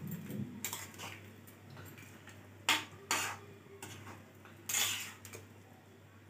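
Metal spatula scraping and clinking against a metal kadai while turning fish pieces in curry, with a few sharper metal-on-metal knocks.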